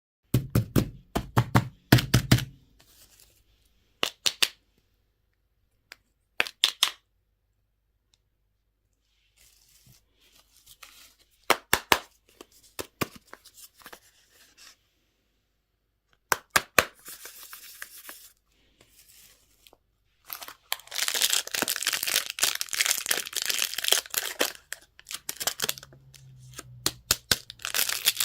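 Candy wrappers being torn open and crinkled by hand. Sharp crackles come in short clusters with pauses between them, then a longer stretch of continuous tearing and rustling begins about two-thirds of the way in.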